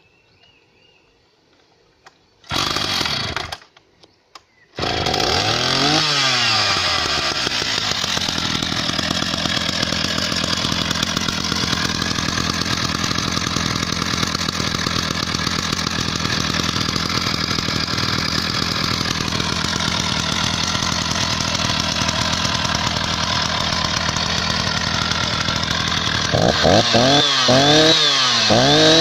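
Freshly rebuilt Husqvarna 480 CD two-stroke chainsaw being pull-started: it fires for about a second and dies, then catches on the next pull about five seconds in. It revs once and settles into a steady running note. Near the end the throttle is blipped three or four times in quick revs.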